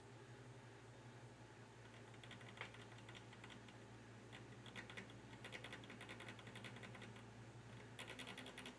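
Faint rapid clicking as the gain control knob of a QSC EX 1600 power amplifier is twisted quickly back and forth, exercising a pot thought to be dirty with dust. The clicking comes in short runs, getting busier from about halfway through, over a steady low hum.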